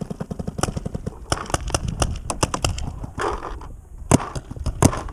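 Paintball markers firing sharp shots, singly and in quick strings of several a second, with the loudest cracks near the end.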